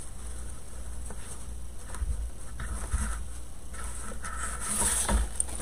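Stiff ribbon rustling in hand as it is folded and pinched into bow loops, in a few short soft scrapes and crinkles.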